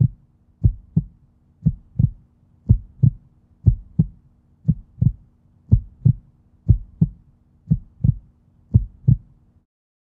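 Heartbeat sound effect: a steady lub-dub, a pair of low thumps about once a second, stopping shortly before the end.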